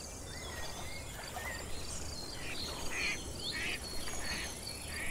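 Outdoor nature sounds: several birds chirping and calling over a steady insect trill, with regular short insect chirps about four times a second.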